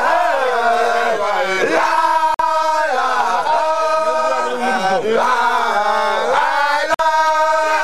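A group of men chanting together in unison, a Baye Fall religious chant, in long held notes that slide between pitches and restart every second or so. The recording cuts out for an instant twice.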